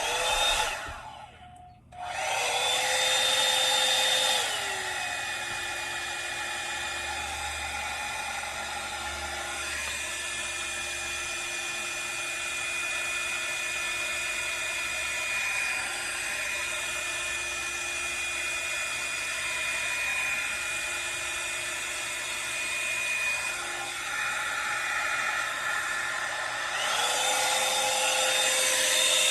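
Revlon One-Step hair dryer brush running: a steady motor whine over rushing air. It stops briefly about a second and a half in and starts again, drops to a lower speed and pitch a couple of seconds later, and rises back to the higher speed near the end.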